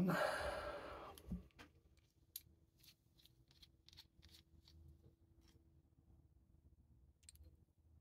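Faint, irregular light clicks, a few a second, from the small metal parts of a bicycle quick-release seat post clamp being handled, as the adjusting nut is turned along the threaded bolt.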